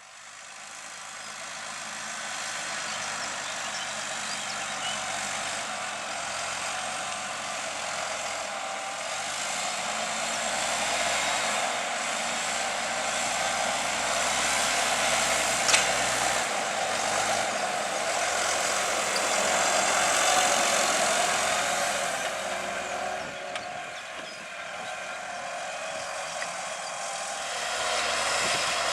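Fendt 820 Vario tractor's six-cylinder diesel engine working steadily under load while pulling a plough, growing louder toward the middle and easing off, with one sharp click about halfway through.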